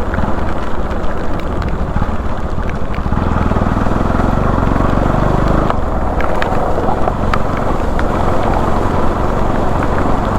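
Bajaj Pulsar NS200 single-cylinder engine running as the motorcycle is ridden, under a steady rush of wind and road noise; the engine note comes through more strongly for a few seconds around the middle.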